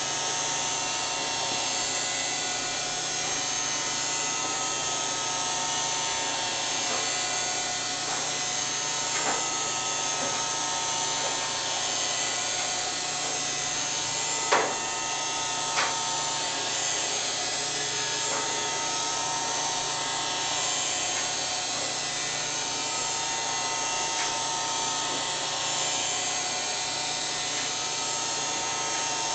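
Roomba robot vacuum running: a steady motor whir with several constant whining tones over a hiss, and a few short knocks, the sharpest about halfway through.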